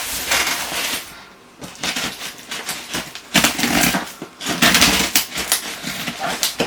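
A parcel being opened by hand: irregular crackling and rustling of packaging with sharp little clicks, and a brief pause about a second in.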